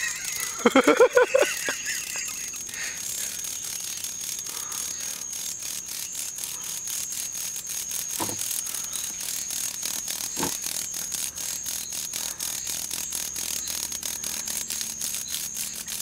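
Night insects calling: a steady, high-pitched trill pulsing several times a second. A short loud burst of pulsed sound comes about a second in, and there are two soft knocks later.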